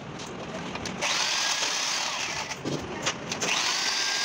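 Hand-held right-angle grinder spinning a valve-seat grinding stone against a valve seat in a diesel cylinder head, throwing sparks. It runs in two short bursts, the first about a second in and the second near the end, each with a whine that winds up and then down.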